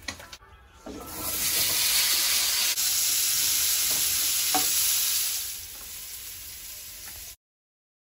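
Pointed gourd (potol) slices sizzling in hot oil in a frying pan as they are stirred with a spatula. The sizzle swells about a second in, holds steady, then dies down and cuts off abruptly near the end.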